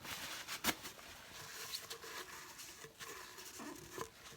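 Dry paper towel rubbing and wiping around a sink drain: scratchy rustling with scattered small knocks, the loudest a sharp knock a little under a second in.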